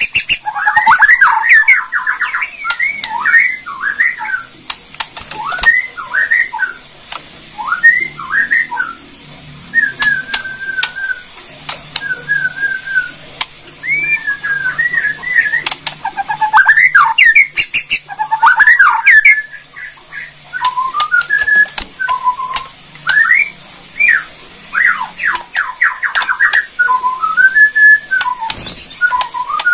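Caged Bornean white-rumped shama (murai batu) singing loudly: varied whistled phrases that sweep up and down. Several times these break into fast harsh rattling runs, the crackling 'kretekan' notes of its song.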